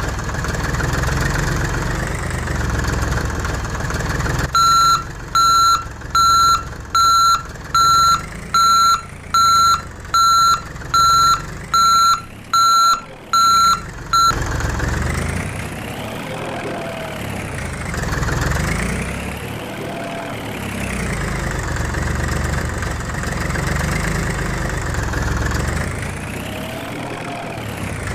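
Excavator engine running steadily, then a reversing alarm beeping evenly, about fourteen times over some ten seconds. After the beeping stops, the engine note rises and falls in pitch over and over, a few seconds per swing.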